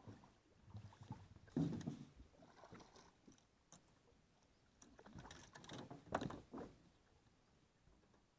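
Hooked largemouth bass splashing and thrashing at the surface in a few short bursts as it is drawn alongside a small aluminium boat, with a sharp knock about six seconds in.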